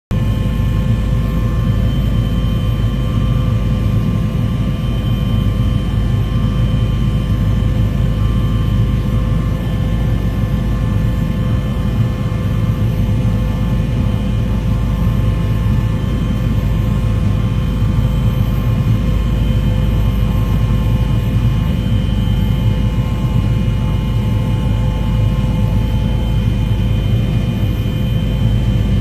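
Aircraft cabin noise: a loud, steady engine drone over a deep rumble, with several constant whining tones that hold the same pitch throughout.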